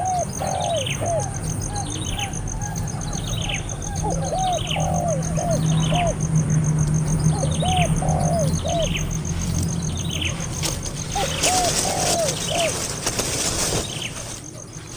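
Birds calling: a high, falling chirp repeats about once or twice a second over lower, hooked calls, with a low steady hum beneath. A stretch of rustling noise comes near the end.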